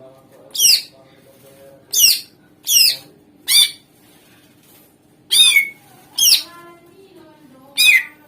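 Cucak ijo (green leafbird) giving seven short, sharp, loud calls, each a quick downward-sweeping note, spaced irregularly about a second apart. A faint steady low hum runs underneath.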